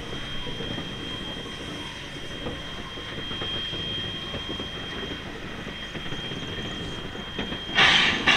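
W class steam locomotive moving slowly over track: a low running rumble with occasional faint knocks and a thin, steady high squeal throughout. A loud burst of steam hiss comes near the end.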